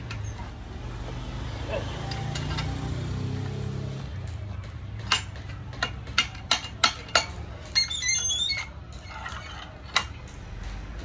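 A string of sharp clicks and knocks from hard objects being handled, several in quick succession about halfway through, then a brief jangling rattle and one last click near the end.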